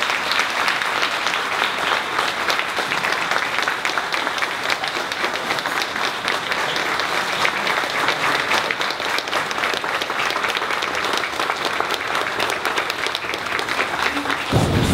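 Audience applauding: dense, steady clapping of many hands, which stops abruptly near the end.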